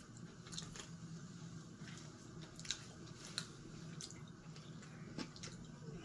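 Sears/Emerson Turn of the Century ceiling fan's KB55 motor running quietly on a capacitor speed-test rig: a faint steady low hum, with a few light ticks.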